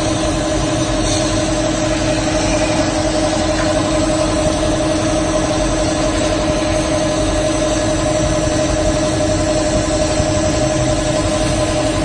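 Laser cutting machine running while it cuts a sheet: a steady machine hum with a constant hiss, unchanging throughout.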